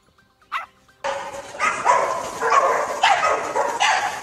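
Dogs barking about twice a second over splashing water as they play in a swimming pool. The barking and splashing start suddenly about a second in, after a nearly quiet second with one short sound.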